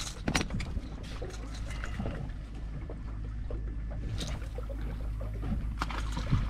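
Steady low rumble of wind on the microphone aboard a small fishing boat, with a few sharp knocks about a third of a second, four seconds and six seconds in.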